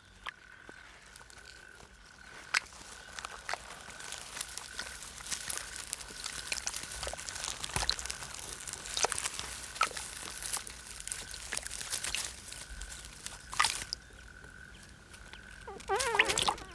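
Pond sound with scattered small wet clicks and crackles, densest in the middle, over a faint steady high whine. A short warbling frog call comes near the end.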